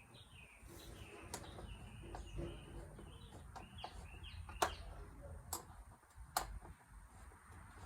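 Scattered sharp clicks and taps from tools working at the bolts on a four-wheeler's body panels, the loudest about four and a half seconds in. Birds chirp faintly in the background during the first half.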